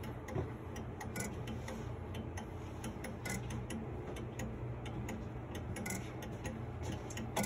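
Weight-driven grandfather clock ticking, its pendulum just hung and swinging, over a steady low hum.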